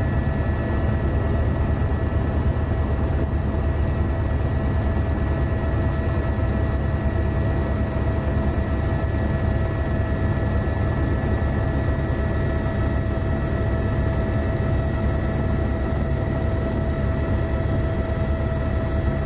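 Steady drone of an aircraft engine heard from on board: a low rumble with a couple of steady whining tones above it.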